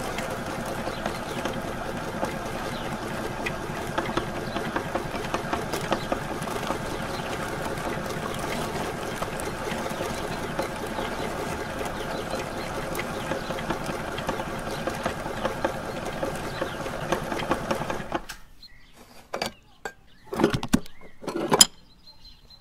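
Electric meat grinder running steadily as it forces soft ice cream through its cutting plate; the motor stops about 18 seconds in. A few sharp knocks follow.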